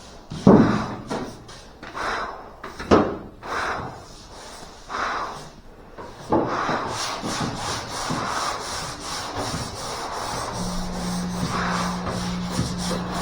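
Sandpaper being worked by hand over a car's body panel: separate rubbing strokes about once a second, then steady continuous sanding from about six seconds in. A steady low hum joins near the end.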